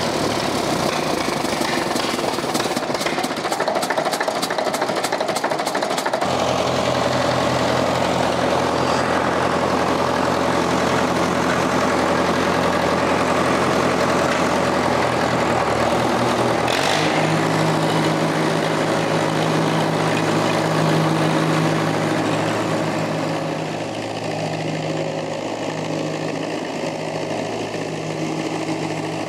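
Farmall M diesel tractor engine being started: a few seconds of cranking, then the engine catches about six seconds in and settles to a steady run. Its note changes about seventeen seconds in and it runs on steadily.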